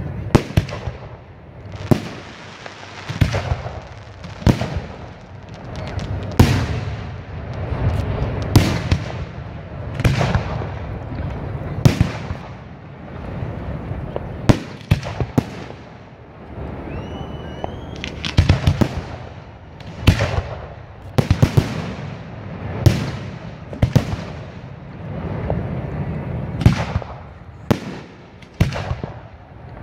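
Aerial fireworks shells bursting one after another, a sharp boom every second or two, each echoing away. Quick clusters of reports come about two-thirds of the way through.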